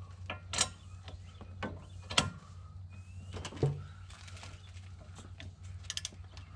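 Ratchet head of a long torque wrench clicking as a 17 mm hub-bearing bolt is drawn down toward 65 ft-lb. Single sharp clicks come a second or more apart, then a quicker run of clicks near the end.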